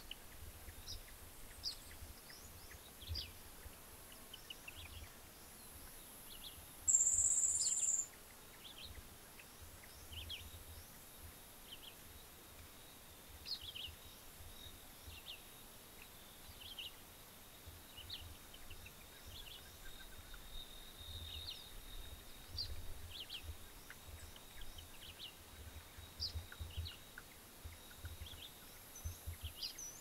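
Wild birds chirping and calling in short, scattered notes. About seven seconds in, a loud high buzz lasts about a second, and a low rumble comes and goes underneath.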